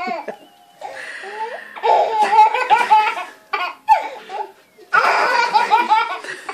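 Baby belly-laughing hard in repeated bouts of high giggles, with short breaks between them, one about half a second in and another about four and a half seconds in.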